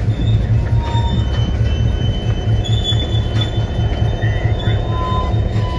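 Amtrak passenger train rolling slowly, its wheels giving short high squeals against the rail over the steady low throb of the diesel locomotive.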